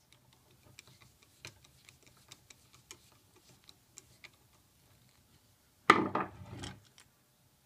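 Yankee-style spiral ratchet screwdriver being handled, giving faint, irregular clicks. About six seconds in comes a much louder clatter lasting just under a second.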